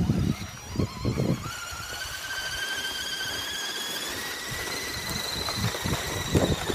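Electric drive of an Axial SCX10 RC crawler whining, the pitch rising slowly as it tows a loaded sled over snow. A few low thuds come near the start and again near the end.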